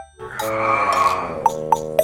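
Light background music with held notes, a brief noisy swell in the middle and three short tapping hits in the second half.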